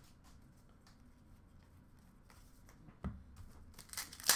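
Faint handling sounds, with a soft knock about three seconds in. Near the end, a short crackle from the foil wrapper of a hockey card pack being handled and torn open.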